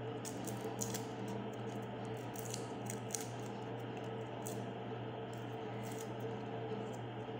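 Kitchen knife scraping and picking the papery skins off garlic cloves: short, faint crackles and scrapes at irregular moments, over a steady low hum.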